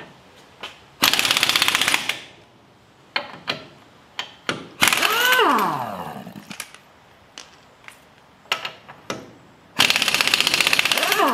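Impact wrench on the car's lug nuts: three bursts of rapid hammering about a second each, the second and third ending as the motor's pitch falls while it winds down. Light clicks and knocks between the bursts.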